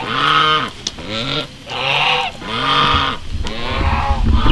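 Domestic geese honking, a run of about six loud, nasal calls one after another, with a low rumble near the end.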